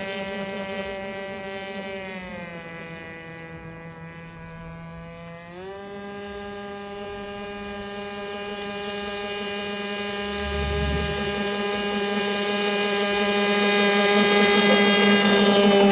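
RC airboat's OS .25 two-stroke glow engine and propeller running at a high steady pitch, throttled back about two seconds in, then opened up again just before six seconds. It holds full throttle and grows louder toward the end.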